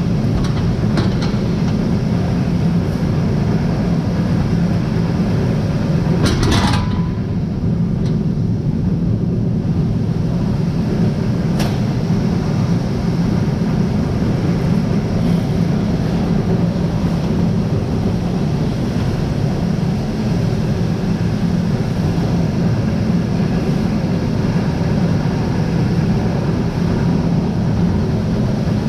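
Grain-unloading machinery running steadily with a low, even drone as soybeans are moved out of the bin into a truck. A brief louder scrape or knock comes about six and a half seconds in.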